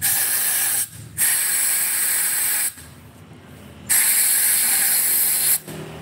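Compressed-air blow gun hissing into a port of a Honda Supra 125 cylinder head in three long blasts, each a second or more with short pauses between. The chamber is filled with liquid to check whether the valves seal, and the valves turn out to be leaking.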